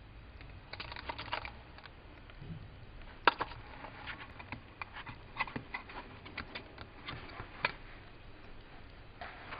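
Small clear plastic eyelash cases clicking and clattering as a hand shifts and handles them: irregular light clicks, with one sharper click about three seconds in.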